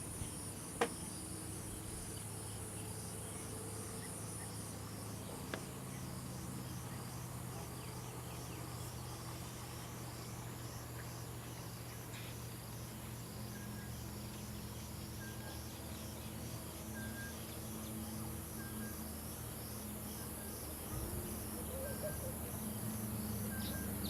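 Insects calling: a steady high buzz with an evenly pulsing chirp, joined about halfway through by a faint short note repeated roughly once a second, over a low steady hum.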